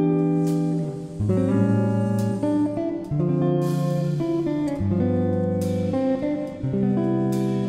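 Background music led by a plucked guitar, with the chords changing every second or two.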